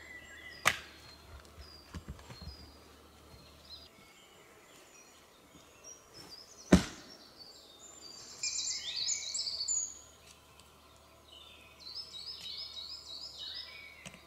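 An axe chopping into an upright log to split it for a Swedish torch: a sharp chop about half a second in, a few lighter knocks soon after, and a louder single chop about seven seconds in. Songbirds chirp in quick runs of notes in the second half.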